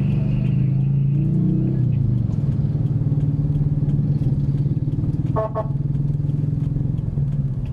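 Car engine running steadily at low speed, heard from inside the cabin as a low drone. A short horn toot sounds about five seconds in.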